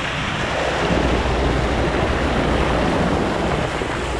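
Steady rush of water with wind buffeting the microphone, swelling a little about half a second in and easing near the end.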